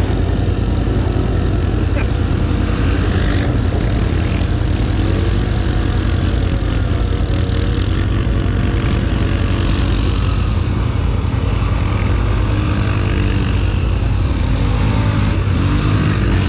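ATV engines running and revving up and down as the quad bikes spin donuts on gravel.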